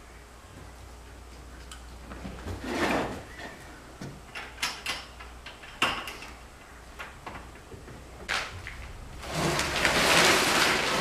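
A few scattered knocks and clicks, then near the end a longer, louder scraping as a small wooden bedside table is shoved across the wooden floorboards.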